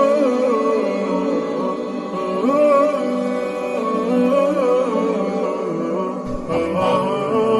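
Background music with a wavering, ornamented melody over sustained tones; deeper low sounds join about six seconds in.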